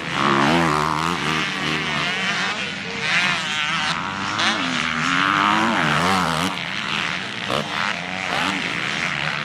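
Two-stroke motocross bike engines revving hard, their pitch climbing and falling again and again as the riders accelerate out of corners and shift, with more than one bike heard at once.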